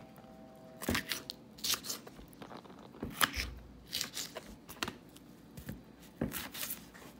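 Kitchen knife slicing habanero chiles and then a white onion on a wooden cutting board: a dozen or so short, irregular cuts, the blade crunching through and tapping the board.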